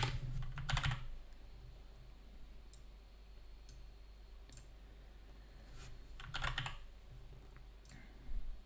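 Computer keyboard keystrokes: a few key presses at the start, then scattered light clicks, and a short burst of typing about six and a half seconds in.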